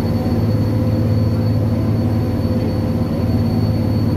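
Pikes Peak cog railway train running up the mountain, heard from inside the passenger car: a steady low drone with a constant hum and a faint high whine over it.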